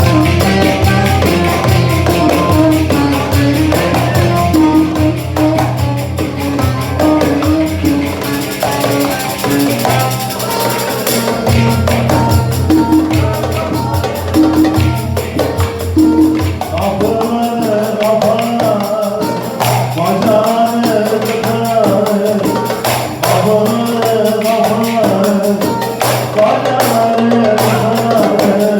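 Instrumental passage of an upbeat Turkish folk-pop song: a melody line over bass and a steady beat, with no singing.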